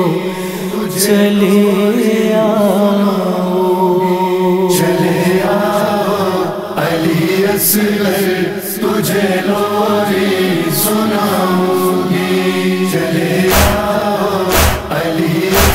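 Backing voices humming and chanting a slow, sustained noha melody without words. Deep thumps come in about two seconds from the end.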